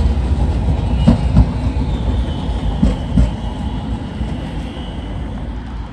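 A train or tram passing: a steady low rumble with a few sharp clacks of wheels over rail joints, two about a second in and two about three seconds in, and a faint high squeal in between.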